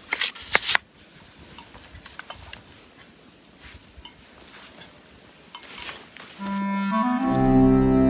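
A few sharp rustles and clicks as a bamboo bird trap and knife are handled, then faint outdoor ambience. About six and a half seconds in, instrumental background music with held notes comes in and quickly becomes the loudest sound.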